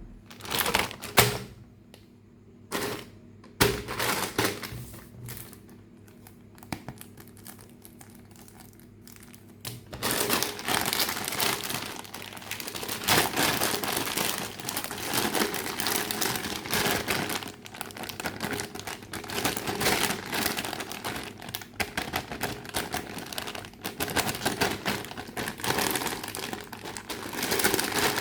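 Toy packaging being handled and unwrapped, crinkling and rustling. There are a few separate taps and knocks over the first several seconds, then continuous dense crinkling from about ten seconds in.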